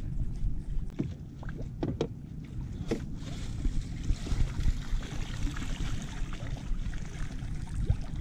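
Water lapping and splashing against the hull of a small wooden outrigger canoe, with wind rumbling on the microphone. A few light knocks on the boat fall in the first three seconds.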